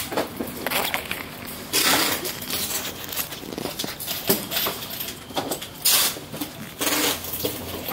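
Irregular rustling, clicks and knocks close to the microphone, with two louder rustling bursts about two seconds in and again near six seconds: handling noise from a hand-held camera.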